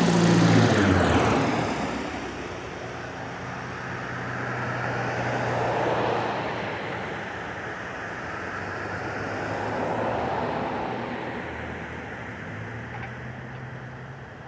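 Airplane passing close by, its engine sound loudest in the first second and dropping in pitch as it goes past, then a steady engine hum that swells twice more and fades.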